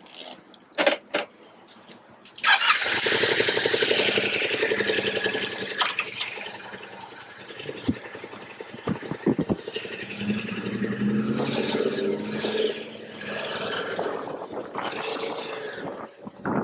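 A few clicks, then the Yamaha MT-07's parallel-twin engine starts suddenly about two and a half seconds in. It keeps running as the bike moves off at low speed, the engine note rising and falling.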